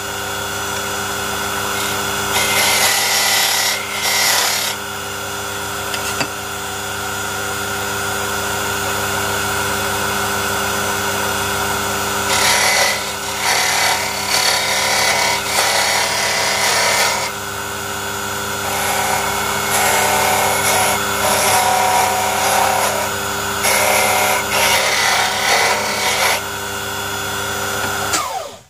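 Small electric rotary tool running steadily and sanding a wooden model part, with louder grinding passes each time it bites into the wood. The motor shuts off abruptly at the end.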